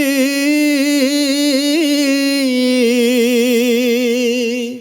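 A singer's voice, recorded through a Lauten Audio LA-320 tube condenser microphone and processed, holds one long note with a steady vibrato in a Punjabi song. The pitch dips slightly about halfway through, and the note fades out at the end.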